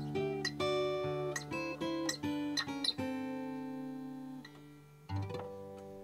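Background music on a plucked acoustic guitar: a run of picked notes, a chord left ringing and fading about three seconds in, then one last chord struck near the end and fading away.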